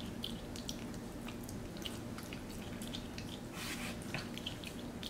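Capuchin monkey licking sauce off a spoon: a run of small, irregular wet clicks and smacks over a low steady hum.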